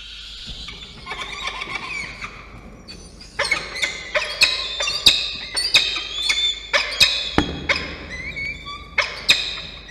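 Peregrine falcons calling in the nest box, led by a downy chick's food-begging. A drawn-out wailing call comes first, then from about three seconds in a rapid run of loud, sharp, repeated screams as the adults arrive with prey.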